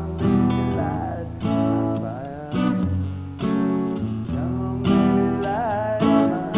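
Acoustic guitar playing a slow chord progression. A new chord is struck about every second and rings out before the next.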